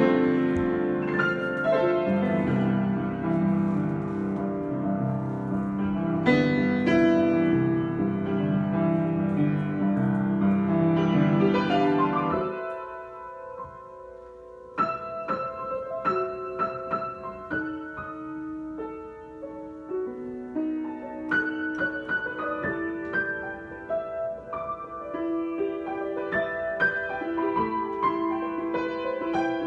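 Solo piano improvisation: full, dense chords, dying down about twelve seconds in to a couple of seconds of fading held notes, then going on with lighter, sparser, higher notes.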